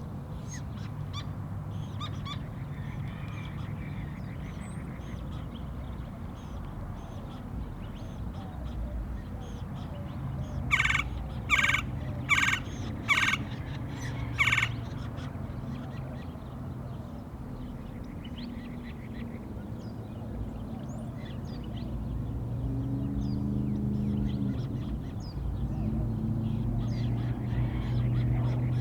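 Gila woodpecker calling five times in a loud, evenly spaced series of short calls, with faint scattered chirps of other birds and a steady low hum underneath.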